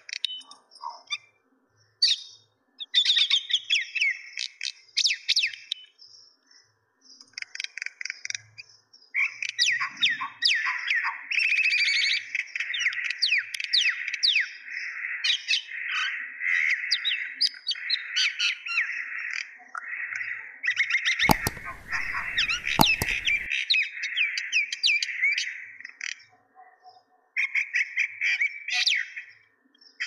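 Several caged mynas chattering, with rapid, squeaky and harsh calls that come in scattered bouts at first, then run on densely through most of the middle and thin out near the end. About two-thirds of the way in, a loud rough burst of noise lasting about two seconds, such as a rustle or clatter, covers the calls.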